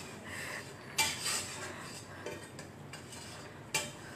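Light clinks of kitchen utensils and dishes: two sharp, short clinks, about a second in and near the end, with a softer one between them.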